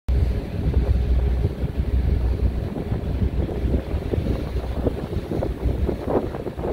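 Wind buffeting the microphone on the deck of a moving passenger ferry, over a steady low rumble of the boat under way and water rushing past.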